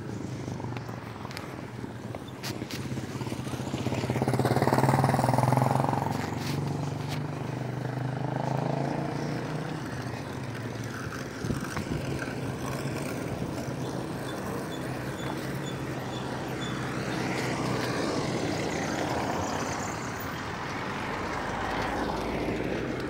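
Street traffic: a motor vehicle passes close by, swelling and fading about four to six seconds in, with more vehicles going by later.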